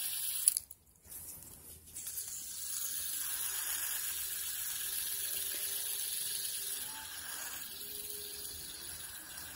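Light-up fidget spinner spinning close to the microphone: a steady soft whirring hiss that eases a little after about seven seconds, following a brief dropout about a second in.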